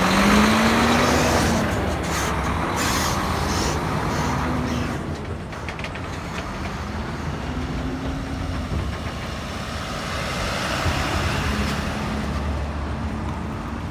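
Mack diesel truck pulling a loaded trailer drives slowly past, its engine note wavering up and down over the steady rumble and tyre noise of the trailers, followed by a pickup truck towing a restroom trailer.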